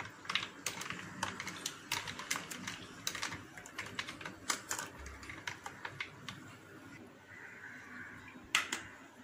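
A long metal spoon stirring ice cubes in a tall glass of mango mojito, clinking irregularly against the ice and glass several times a second for about six seconds, then thinning out; one sharper click near the end.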